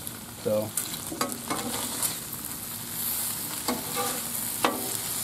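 Steak, onions, green peppers and mushrooms sizzling on a hot steel Blackstone griddle while two metal spatulas scrape and click against the griddle top, gathering and turning the cheesesteak filling.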